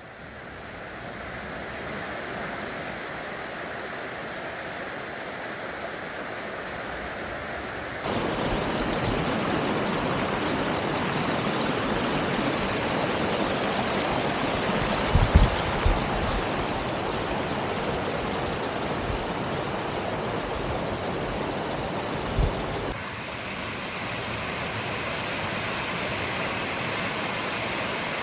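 Rushing water of a rocky mountain stream and a waterfall over a check dam: a steady, even rush that fades in at the start and shifts abruptly twice as the shots change. There are a few brief low thumps around the middle.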